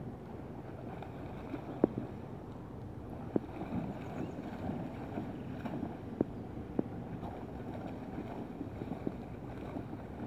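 Steady rush of a shallow river running over riffles, with wind buffeting the microphone. Several short, sharp knocks stand out above it.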